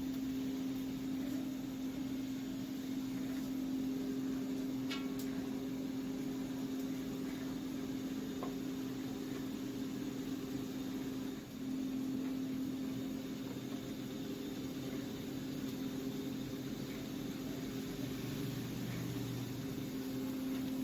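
Steady machine hum with one strong tone and a faint hiss from a steam-operated mawa (khoya) plant running while a batch of milk cooks in the kettle; the hum briefly dips about eleven seconds in.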